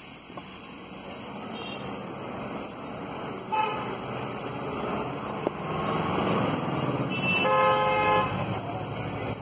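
Vehicle horns honking from the street: a short toot about three and a half seconds in and a louder horn lasting about a second near the end, over a steady noisy street background.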